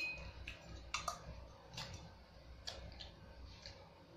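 Chopsticks clicking against a bowl as the last noodles are scooped from its rim into the mouth: a handful of faint, irregular taps.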